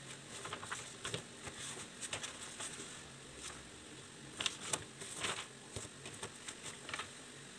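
Faint scratching and rustling of a pencil writing on a paper worksheet, with scattered light ticks and paper handling.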